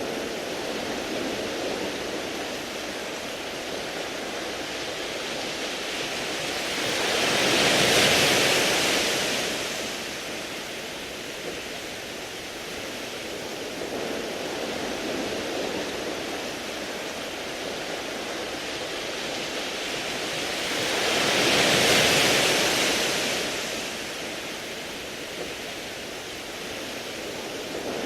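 Sea waves washing over a beach of smooth round pebbles: a steady rushing hiss that swells loud twice as waves come in, about fourteen seconds apart.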